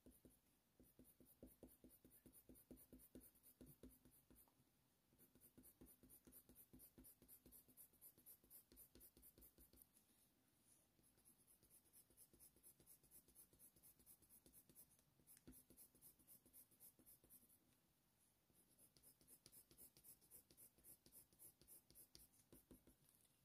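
Near silence with the faint scratching of a Faber-Castell Polychromos colour pencil drawn over hot-press watercolour paper in a quick, even run of short strokes, laying down fur.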